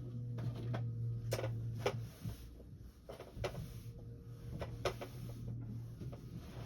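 A few sharp clicks and knocks over a steady low hum, which drops out for a couple of seconds in the middle.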